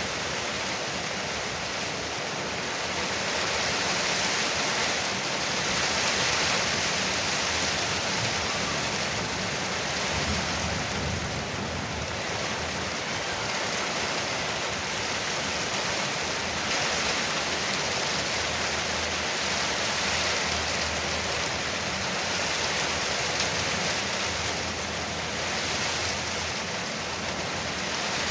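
Heavy rain falling on a veranda roof: a steady, dense hiss that swells and eases slightly every few seconds.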